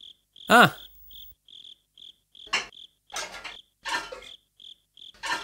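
Crickets chirping steadily, about two and a half chirps a second. A brief vocal sound about half a second in is the loudest thing, and a few short knocks follow in the second half.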